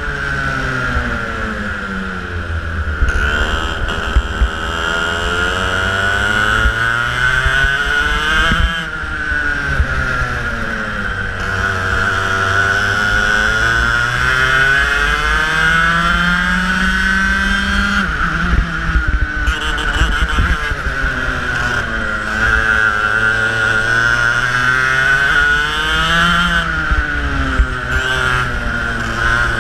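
Onboard sound of a racing kart's engine at full race pace, its pitch climbing steadily for several seconds down each straight and dropping as it brakes into each corner, the cycle repeating about three times.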